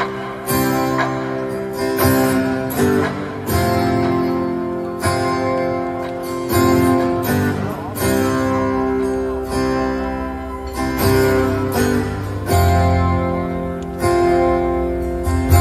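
Acoustic guitar strumming slow chords, played live through an arena PA, each chord ringing out and fading before the next. A deep low note joins in near the end.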